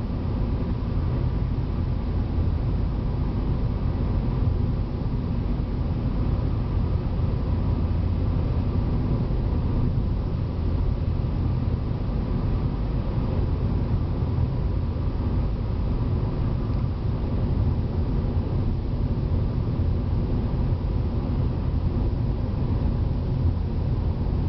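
Steady low rumble of a car moving at road speed, heard from inside the cabin: tyre, road and engine noise with no changes or sudden events.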